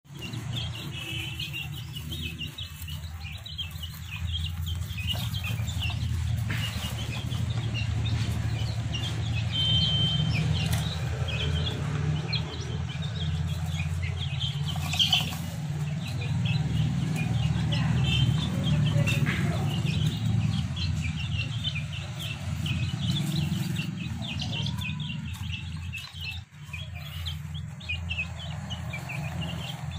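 Young Aseel chickens peeping, many short high calls one after another, over a steady low rumble.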